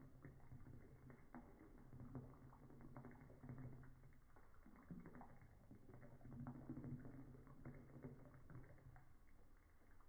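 Faint, low, muffled pattering and splashing of a thin stream of tap water on a bathing budgie and the bottle it perches on, slowed down by slow-motion playback, with a low hum that comes and goes.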